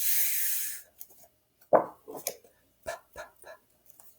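A woman's drawn-out voiceless 'fff', the speech sound of the letter F, then a few soft short puffs from her voice, the teacher's 'p' sound.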